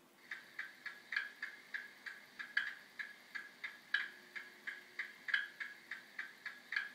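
Sound decoder of a Bachmann OO-gauge class 37 model diesel locomotive playing a steady, even ticking, about three ticks a second, as part of its start-up sound.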